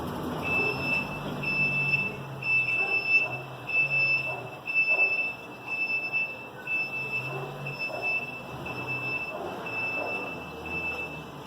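An electronic beeper sounding a steady, high, even beep about one and a half times a second, stopping shortly before the end, over a background of street traffic rumble.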